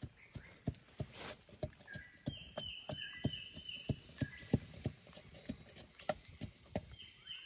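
Wood campfire crackling, with irregular sharp pops and clicks. A bird calls in short runs of repeated high notes in the middle and again near the end.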